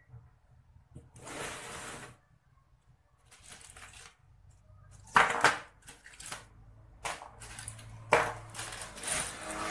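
Small metal electronic parts clattering and clinking as a hand rummages through a tray of components. The sound comes in several bursts with sharp clicks, busier in the second half.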